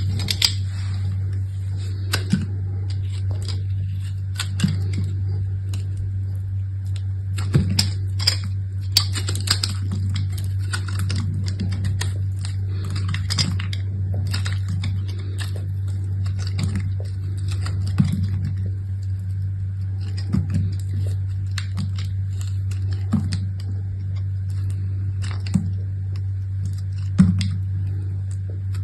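Soap packaging being opened and handled by hand: scattered crinkles, taps and clicks, over a steady low hum.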